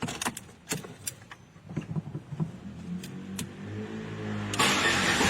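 Clicks and light knocks of handling and keys, then a car engine being cranked and catching about four and a half seconds in, settling into a steady run. It is a test start with the belt tensioner and accessory belt refitted.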